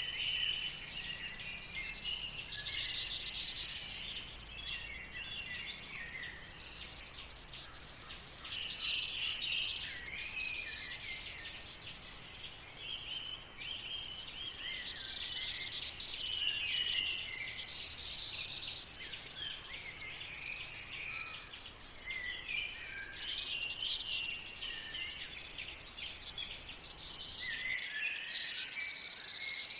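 A morning chorus of songbirds: several birds singing at once, with overlapping chirps and fast high trills that come and go every few seconds.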